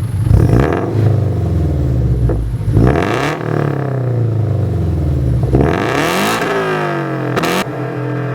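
FA20 flat-four engine of a GT86/BRZ/FR-S through a catless exhaust (Borla unequal-length header, Invidia N1 catback), revved about three times with the pitch climbing and falling back each time, and a quick blip near the end.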